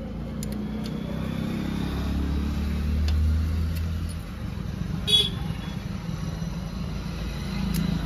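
A motor vehicle engine running close by, its low hum swelling to a peak about three seconds in, easing off, then rising again near the end. A short, sharp high-pitched sound comes about five seconds in.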